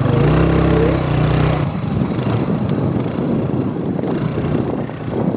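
Small motor scooter engine running: a steady hum for about the first second and a half, then a rougher, noisier rumble.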